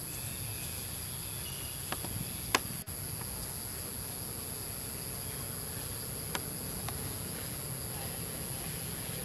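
Steady high-pitched drone of insects in the forest, crickets or cicadas, running without a break. A few sharp clicks sound over it, the loudest about two and a half seconds in.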